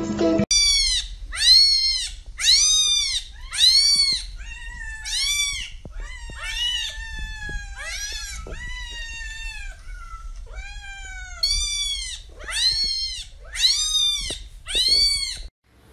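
Cat meows one after another, about one every half-second to second, each a high call that rises and falls in pitch.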